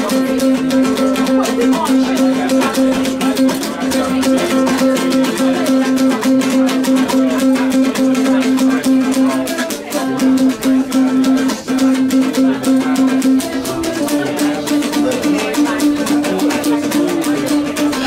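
A long-necked plucked string instrument playing a repeating pattern over a steady held note, with a rattle shaking along. The held note steps up slightly about fourteen seconds in.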